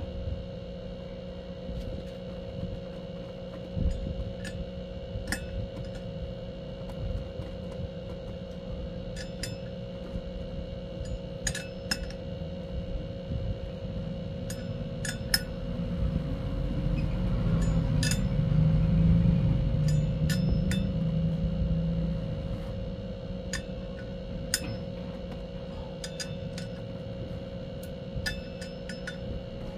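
Scattered metallic clinks and taps of hand tools on motorcycle hub bolts as they are tightened by hand, over a steady hum. A low rumble swells and fades in the middle.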